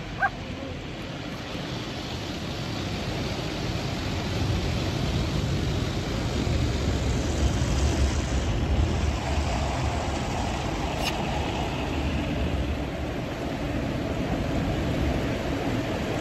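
Automatic drive-through car wash working over the car, heard from inside the cabin: a steady rushing noise with a deep rumble that builds over the first several seconds.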